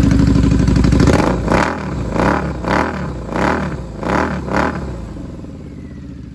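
2013 Harley-Davidson V-Rod Muscle's Revolution V-twin running at a steady fast idle, then blipped six times in quick succession before settling back to a lower idle.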